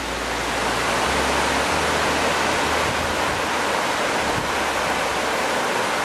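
Waterfall: the steady rush of a tall fall of water onto rock, an even hiss with no breaks.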